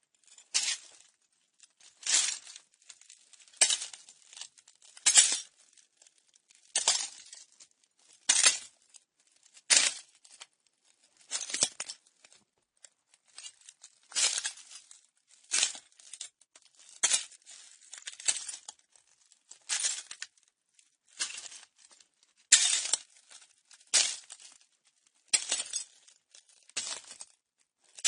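Slow footsteps crunching on broken glass, one gritty crunch about every second and a half as shards grind and clink under each shoe.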